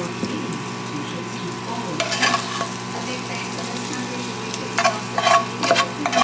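Food sizzling in a frying pan as it is stirred, over a steady hum, with a few short utensil clatters about two seconds in and again near five seconds.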